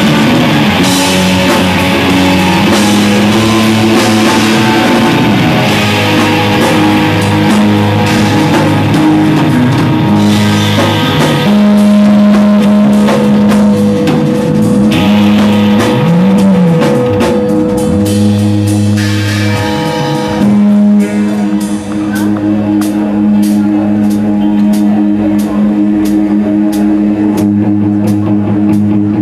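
Live rock band playing: electric guitars, bass and drum kit, loud and dense, with a guitar or bass note bent up and back down near the middle. The playing thins for a moment about two-thirds through before the band carries on into a new section.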